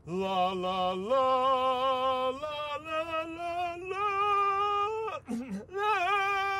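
A single voice singing long held notes with vibrato, each note stepping higher than the last, with a short sliding break about five seconds in before a final high held note.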